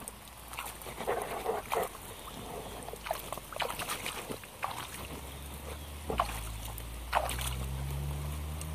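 Rubber boots wading through a shallow muddy puddle, with irregular splashing and sloshing steps. A low steady hum comes in about halfway through.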